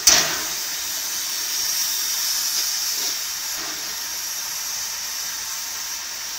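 Steam locomotive letting off steam: a sudden loud blast right at the start, then a steady hiss of steam escaping low down around the cylinders.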